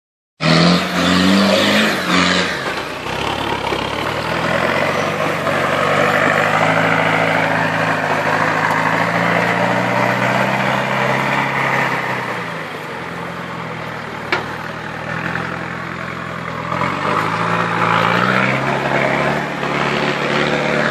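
Land Rover 4x4 engines revving hard and dropping back as the vehicles push through a deep muddy rut and climb a mud bank; the engine pitch rises and falls repeatedly. A single sharp knock sounds about two-thirds of the way through.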